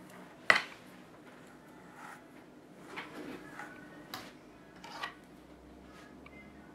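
Hair-handling sounds: one sharp click about half a second in, then a few softer ticks and rustles as a comb is drawn through a mannequin head's long hair and a section is lifted between the fingers.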